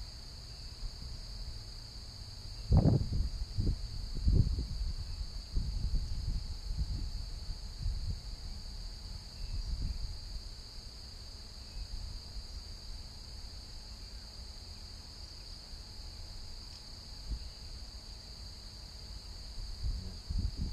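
Steady, high-pitched chorus of marsh insects. Several dull, low thumps and rumbles are heard over it during the first half, the loudest about three and four and a half seconds in.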